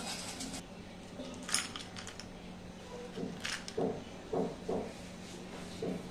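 Small clinks and taps of crisp honeycomb toffee pieces against glass as they are picked from a glass bowl and set on a glass of milk, the sharpest about a second and a half in. From about halfway on comes a run of short, low pulses about every half second.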